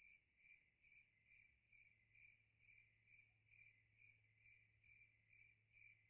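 Faint cricket chirps, about two a second in an even rhythm, cutting off abruptly: the stock 'crickets' sound effect for an awkward silence after a joke falls flat.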